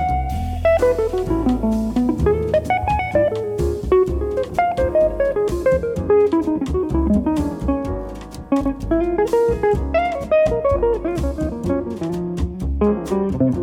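Jazz guitar playing a fast single-note solo over bass and drum kit, with cymbals ticking along.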